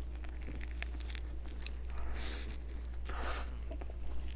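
Close-miked chewing of a soft, chewy donut: small wet mouth clicks, with two soft swishes about two and three seconds in. A steady low hum runs underneath.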